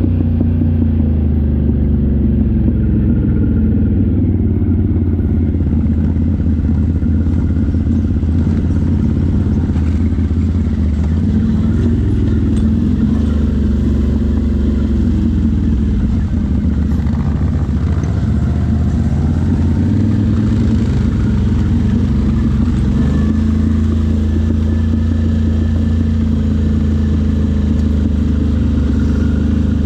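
Off-road vehicle engine running steadily under way, its pitch shifting briefly about twenty seconds in before settling again.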